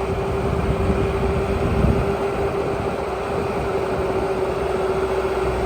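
Bobcat S650 skid steer loader's 74-horsepower diesel engine running steadily, with a constant whine over it.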